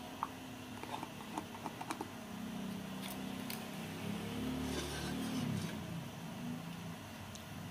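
Metal spoon clicking and scraping against a small aluminium pot while stirring a thin rice-flour mixture, with a run of light clicks in the first two seconds. A low hum swells through the middle and fades.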